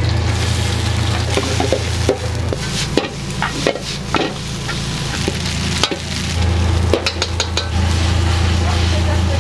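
Pasta sizzling and being stirred in a frying pan, with sharp metal clinks of the pan and utensils as it is tossed, over a steady low hum that drops away for a few seconds in the middle and returns.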